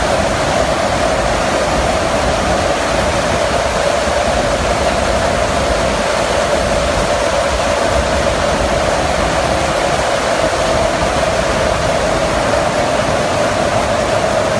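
Loud, steady rush of wind and engine noise inside the cargo hold of a transport aircraft flying with its rear ramp open, with a steady mid-pitched drone running through it.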